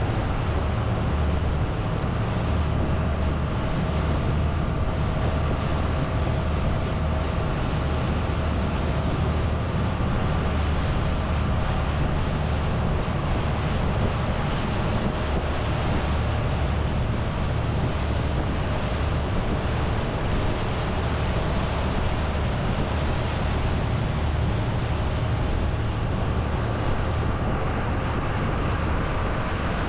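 Boat engine running steadily under way, a constant low drone, with wind on the microphone and water rushing past the hull.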